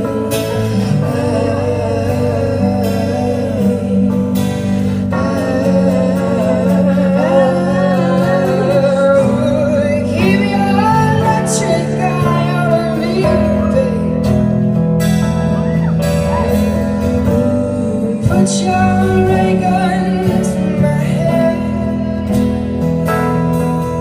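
Live acoustic band playing a song: two strummed and picked acoustic guitars and a keyboard accompanying a sung lead vocal, continuous throughout.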